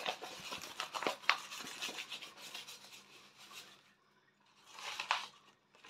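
Scratchy rubbing and small clicks of stiff packaging from a diamond painting kit being handled. They stop for a moment about four seconds in, and there is one short rustle about five seconds in.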